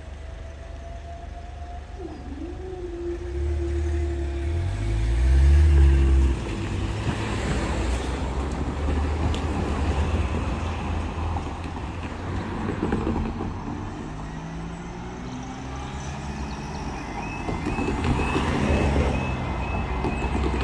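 Road traffic pulling away across a railway level crossing, a heavy vehicle's engine accelerating and loudest about five seconds in. Near the end the crossing's alarm starts: a quiet, rapidly repeating warning tone that signals the barriers are about to lower.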